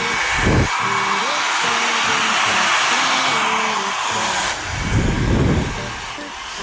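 Philips HP8100/60 1000 W compact hair dryer running, its airflow a steady loud hiss, with gusts of air buffeting the microphone. The hiss drops away about four and a half seconds in.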